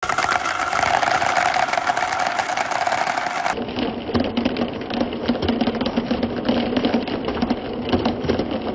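Glass marbles rolling around the inside of a large plastic funnel bowl: a steady, rattling whirr with constant small clicks as the marbles knock together. About three and a half seconds in the sound changes abruptly, from a higher whirring hum to a lower rumble packed with clicks.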